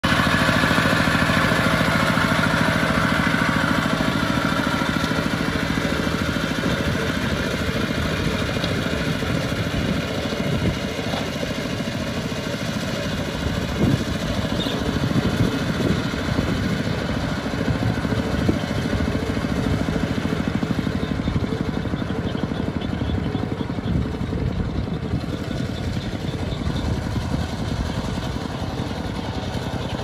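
Kubota ZT single-cylinder diesel engine of a two-wheel walking tractor running steadily under load as it drags a leveller through a flooded rice field, getting slightly fainter as the tractor moves away.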